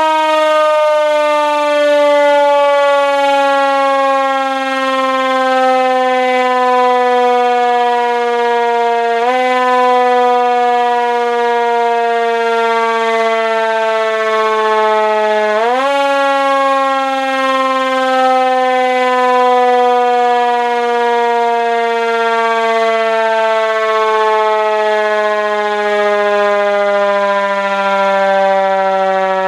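Chrome Federal Signal Q1B electromechanical siren wailing with a slowly falling pitch as it coasts down, its pitch jumping back up briefly at the start, about nine seconds in and about sixteen seconds in before sagging lower again.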